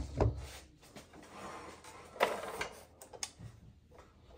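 A few light handling knocks and clicks, the sharpest about two seconds in, as a wooden fence picket is positioned on a cordless miter saw and the saw's head is pulled down to the board. The saw's motor is not running.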